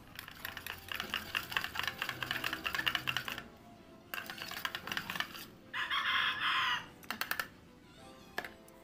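A stick scraping and knocking around the inside of a stainless steel pot as thick bitumen waterproofing coating is stirred until evenly mixed, a rapid run of clicks for the first few seconds. About six seconds in there is a brief, louder sound of another kind.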